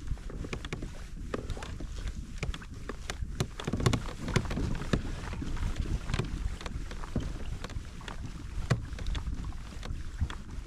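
Wind buffeting the microphone on a small fishing boat, a low rumble with scattered light knocks and clicks.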